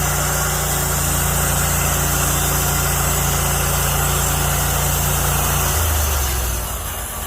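Sawmill engine idling steadily. About six seconds in its note drops lower and it gets a little quieter.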